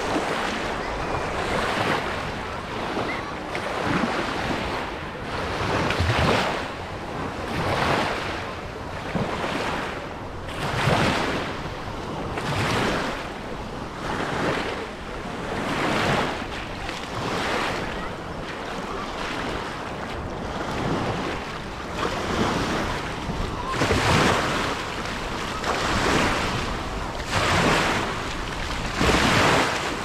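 Waves washing on the beach and wind buffeting the microphone, with a regular swish about once a second.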